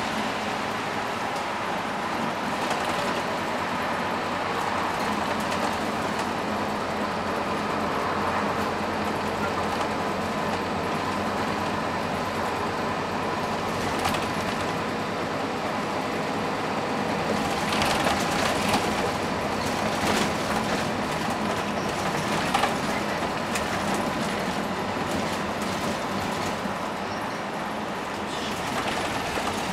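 Cabin sound of a moving Scania K230UB Omnilink single-deck bus: a steady hum of its diesel engine and road noise with a faint whine, and short clatters now and then, several of them a little past the middle.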